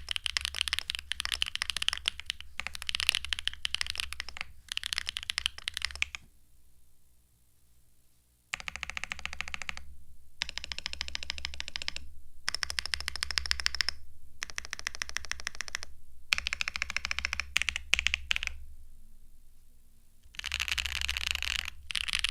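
Mechanical keyboard with tactile switches being typed on in rapid, continuous runs of keystrokes. The keystrokes stop for about two seconds a quarter of the way in, then start again.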